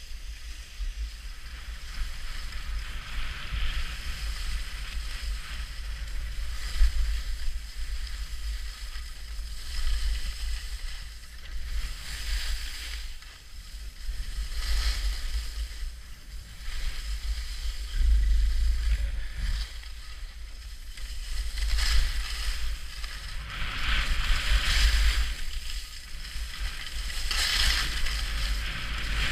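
Skis scraping and carving over packed snow, swelling into a louder scrape with each turn every few seconds, over a steady low rumble of wind on the camera microphone.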